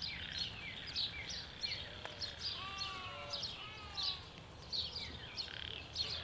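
Birds chirping in a steady chorus: short high chirps sliding downward, two or three a second, with a few lower whistled notes a little before midway.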